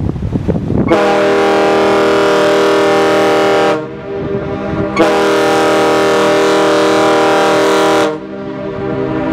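Wind on the microphone for about a second, then a ship's horn sounds two long, steady, low blasts of about three seconds each, with a short gap between them and a third blast starting right at the end.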